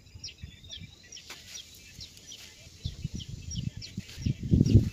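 A bird calling over and over, a short falling chirp about twice a second, with a low rumbling thumping that swells near the end and is the loudest sound.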